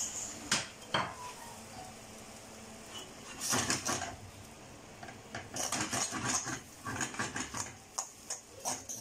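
A metal fork clinking and scraping against a stainless steel pan while spaghetti is stirred and tossed with olive oil, working it into a thick emulsion with the stock. There are a couple of knocks in the first second, a cluster a few seconds in, then a quick irregular run of clinks through the second half.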